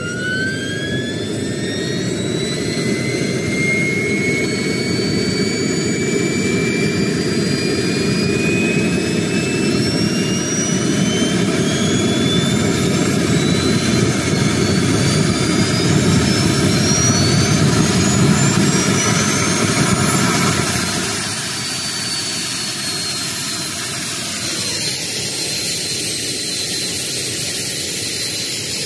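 JetCat PHT3 kerosene-start turboshaft engine spooling up during its start: a high whine climbs steadily in pitch for about twenty seconds over a loud low rushing noise. Then the whine levels off at a steady pitch and the rushing noise drops as the turbine settles at a steady speed.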